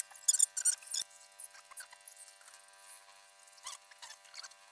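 Short, high-pitched metallic squeaks and clicks of parts being handled on the top of a Kia JT 3.0 diesel engine during its rebuild. There is a cluster in the first second and a few more near the end.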